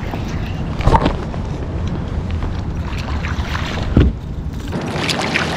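Low steady rumble of wind buffeting the microphone, broken by two sharp knocks, one about a second in and one near four seconds in.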